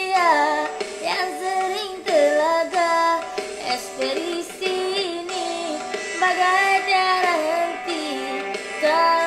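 Music from a Malay pop ballad: a wavering, gliding lead melody over accompaniment, between sung lines.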